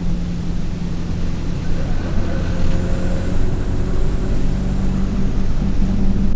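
Alexander Dennis Enviro200 single-deck bus's diesel engine and Allison automatic gearbox heard from on board while under way: a steady low engine drone over road rumble. A faint high turbo whine rises and falls through the middle of it.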